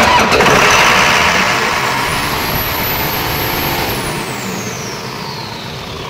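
Clarke diesel fire pump engine starting from the manual crank switch on battery 1, then running. It comes in suddenly and loud and eases off gradually, with a high whine that climbs about two seconds in and slowly falls away after about four seconds.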